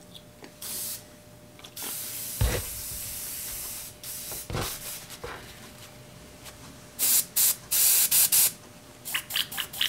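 Airbrush blowing cleaning fluid through in repeated hissing bursts of compressed air as it is flushed out between colours. There is one long burst a couple of seconds in, and a run of short, louder bursts later on, with a couple of low knocks of handling.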